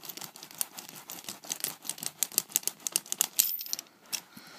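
Carpet seam roller being rolled back and forth over a glued carpet patch, making a rapid, irregular run of clicks and crackles in the pile. The clicking stops about three and a half seconds in.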